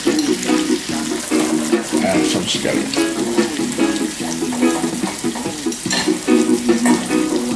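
A stick of butter sizzling steadily in a saucepan over a gas flame, under background music.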